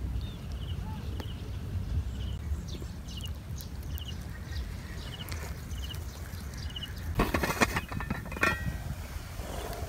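A small creature gives short trilled chirps about once a second over a low steady rumble. About seven seconds in comes a burst of metallic clattering, with another clink about a second later, as a stick knocks on the lid of an aluminium cooking pot.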